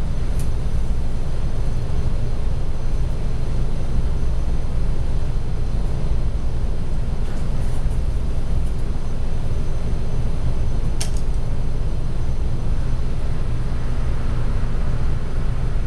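Steady low rumbling noise with a few short clicks, the clearest about eleven seconds in.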